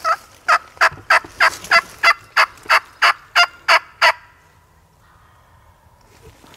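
A turkey yelping: a loud series of about a dozen evenly spaced yelps, roughly three a second, stopping about four seconds in.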